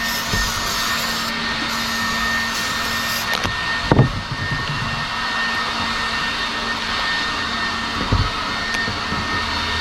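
Steady blowing hum of a fan or blower running, with a constant low drone and a faint high whine. Two short knocks cut through it, the louder one about four seconds in.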